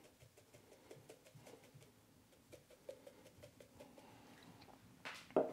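Spice shaker shaken over slices of raw pork, a faint patter of seasoning granules falling onto the meat. A louder thump comes near the end.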